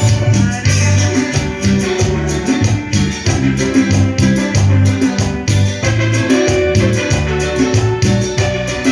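Instrumental music: a keyboard-led melody over a rhythmic bass line that changes note every half second or so.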